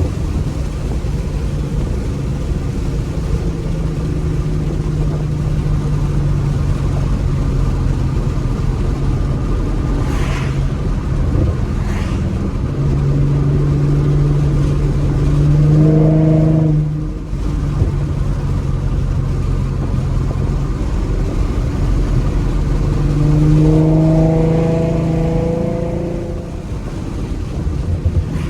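Modified 3.7-litre V6 of a 2014 Mustang, breathing through shorty headers and a Roush axle-back exhaust, pulling under acceleration. The exhaust note climbs and swells, drops off sharply about halfway through, then swells again a few seconds later before easing back. Two short sharp cracks come before the first pull.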